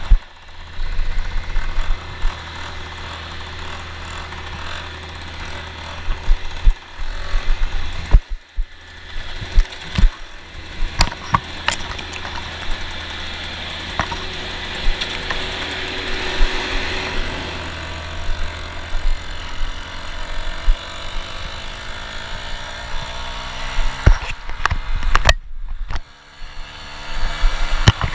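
Piaggio Ciao moped's small two-stroke single, fitted with a Polini tuning kit, running under way over rough grass, with frequent sharp knocks and rattles from bumps. The sound drops almost to nothing for under a second twice, and in the last third the engine pitch rises and falls with the throttle.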